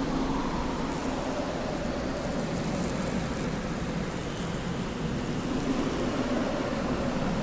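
Steady rushing background noise with faint low droning tones underneath.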